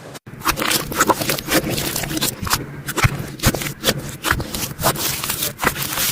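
Slime being squeezed and worked by hand, giving a dense, irregular run of sticky clicks and pops, broken by a brief dropout just after the start.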